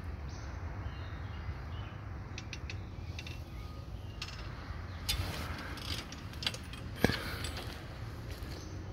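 Footsteps on dry leaf litter and twigs, with scattered irregular clicks and crackles and one sharp snap about seven seconds in, over a low steady rumble.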